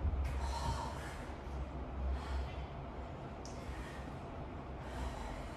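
Heavy, forceful breathing of a woman exercising: a few noisy breaths a second or so apart, over a low rumble.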